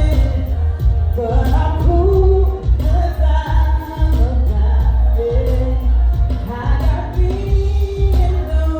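A live R&B band playing with a heavy bass line, and a singer's voice carrying a sung melody over it.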